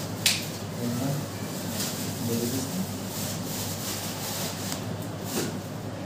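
Marker pen writing on a whiteboard: brief scratchy strokes, with one sharp click about a quarter second in, over a steady low hum.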